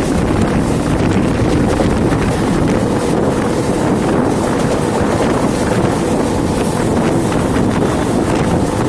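Wind buffeting the microphone at the open doorway of a moving Mumbai suburban electric train, over the train's steady rumble along the tracks. The sound is loud and unbroken.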